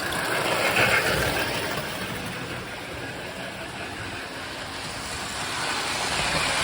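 Lionel Chicago and Alton toy steam locomotive running on the track, its electronic Sound of Steam unit giving a chuffing hiss over the noise of motor and wheels. The hiss grows louder toward the end.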